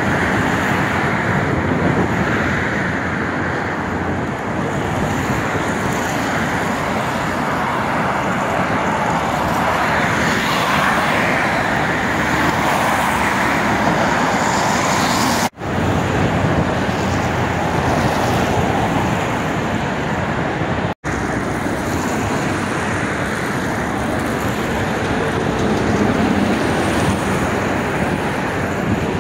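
Steady city road-traffic noise, an even rush of passing cars, broken by two sudden brief cuts, about halfway and about two-thirds of the way through.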